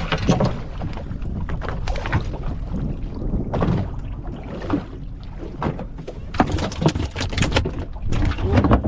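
Water splashing against the side of a small fishing boat as long fish are hauled out by hand, with irregular knocks and thuds on the boat and a steady low rumble of wind on the microphone.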